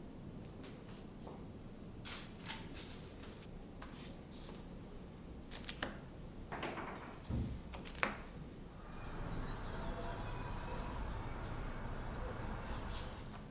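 Light clicks and knocks of kitchen things being handled, then a steady hiss lasting about four seconds near the end.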